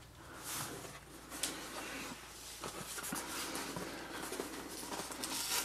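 A cardboard parcel being handled and opened by hand, with irregular scraping and rustling.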